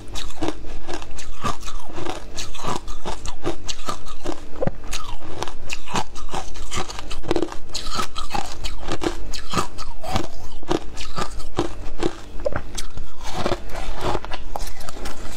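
Loud crunching and chewing of matcha-coated crushed ice, a dense run of crisp crunches one after another with no pause.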